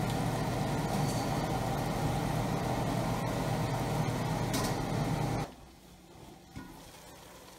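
Beef and green beans sizzling in a wok while a spatula stirs them, over a steady low hum. A metal dome lid goes on over the wok with a brief clink, and about five and a half seconds in the sound drops suddenly to a quiet background.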